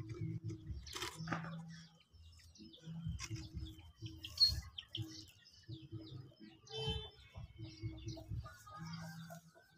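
Birds chirping in short high calls, the sharpest about four and a half seconds in, over a low hum that comes and goes. A brief rustle about a second in.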